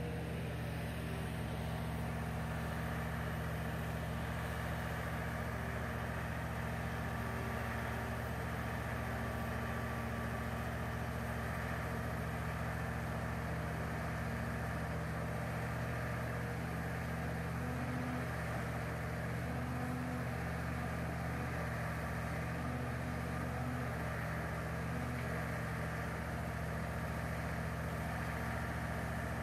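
Diesel engine of a Mercedes-Benz crane truck running at a steady, constant speed to power its truck-mounted loader crane, a steady low hum with no change in pitch.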